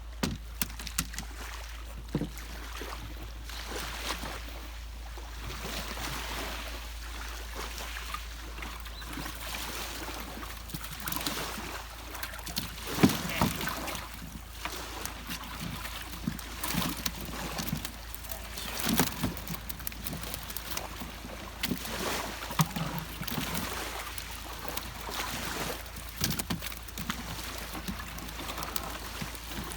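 Water lapping and sloshing against a small boat, with irregular knocks and bumps.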